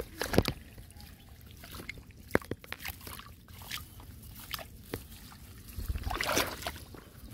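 Shallow muddy water sloshing and trickling as a hand moves through it, with a few sharp splashes and a louder stretch of splashing about six seconds in.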